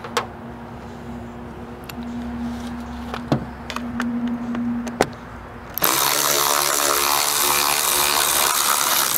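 Electric ratchet with a T30 Torx socket backing out a convertible-top frame bolt. A few light metal clicks come as the socket is seated, then about six seconds in the tool runs steadily for about three seconds.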